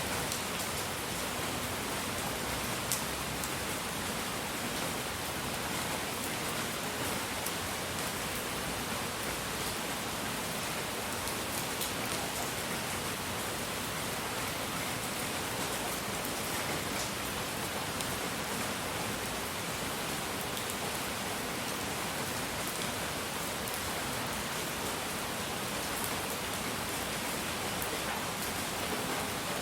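Steady relaxing noise: an even, unchanging hiss across the whole range, with a few faint scattered ticks.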